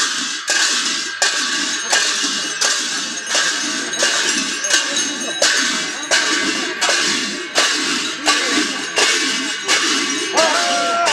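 Pairs of metal hand cymbals clashed together in a steady beat, about three clashes every two seconds, each ringing on into the next, with people's voices beneath.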